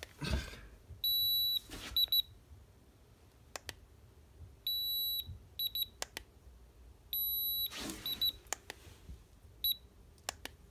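Handheld infrared thermometer beeping as it takes readings: a long high beep followed by a quick run of short beeps, repeated three times, then a few single short beeps, the pattern such thermometers give for a high-temperature reading. Sharp clicks and brief handling rustle fall between the beeps.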